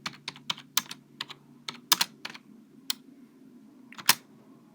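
Typing on a plain wired Microsoft keyboard: an uneven run of key clicks, about fifteen strokes with short hesitations between them, one of the loudest about four seconds in.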